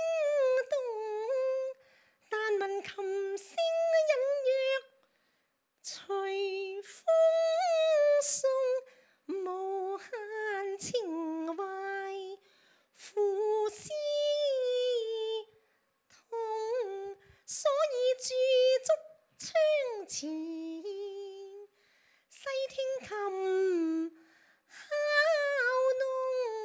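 A woman singing unaccompanied in a high Chinese-opera style. She sings in short phrases of gliding and held notes, with brief silent pauses between them.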